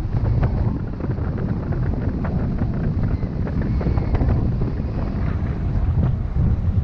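Wind buffeting the microphone of a bicycle rider's camera on a fast downhill descent: a loud, gusty low rumble, with a few faint ticks over it.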